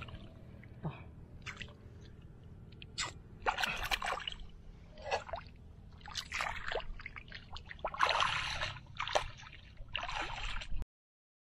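Shallow water splashing and sloshing in irregular short bursts over a low steady background, cutting off suddenly near the end.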